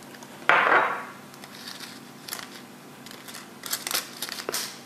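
Whole spices being handled into a small metal mesh spice ball: a short rustle about half a second in, then a cluster of small metallic clicks and rattles near the end as the ball is closed.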